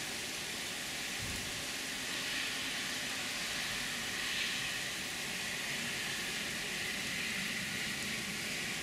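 Heavy storm downpour hissing steadily, swelling a few times.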